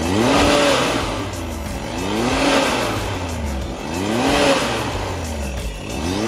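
Can-Am Maverick X3's three-cylinder engine is blipped three times, about two seconds apart, each rev rising and then falling in pitch. The CVT cover is off, and the new drive belt and clutches are spinning on a test run after the belt and drive clutch were replaced.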